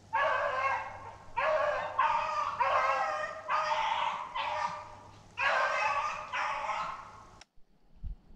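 Beagles baying while running a jumped rabbit: a string of about nine long, drawn-out bays in quick succession that cuts off suddenly near the end.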